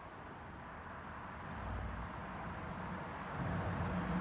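Steady high-pitched insect drone over a low outdoor rumble that swells a little about a second and a half in.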